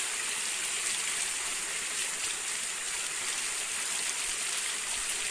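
Water of a small stream running steadily, an even rushing hiss with no breaks.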